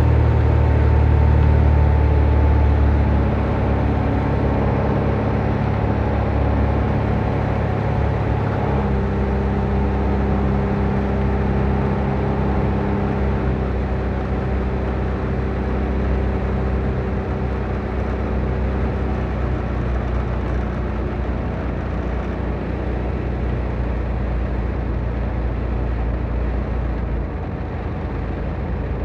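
Jabiru light aircraft's engine and propeller droning, heard from inside the cockpit on a landing approach. The engine note drops about three seconds in and shifts again about nine seconds in as the power is brought back for the approach.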